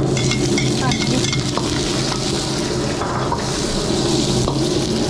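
Shrimp with dried chilies, garlic and scallion sizzling in a hot wok, stirred with a metal ladle that scrapes and clicks against the pan. A steady low hum runs underneath.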